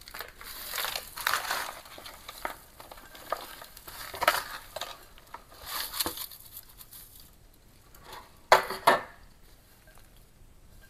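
Chunky aroid potting mix pouring and rattling out of a bent aluminium foil pan into a planter, in uneven spills, with the foil crinkling. Near the end come two sharp knocks close together.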